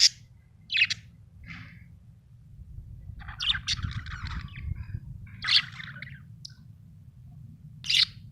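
Budgerigar chirping: short sharp calls at irregular intervals, with a longer run of chattering warble around the middle.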